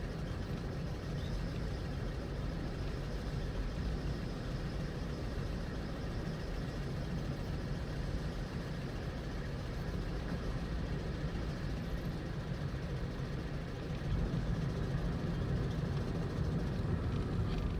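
Cabin sound of a 2012 Toyota Aqua hybrid coasting with the accelerator released: a steady low road and drive rumble. Through it runs the faint, continuous abnormal noise the owner is chasing, which he likens to a 'kyu-kyu' squeak and which stops when the brakes are applied. The sound gets a little louder near the end.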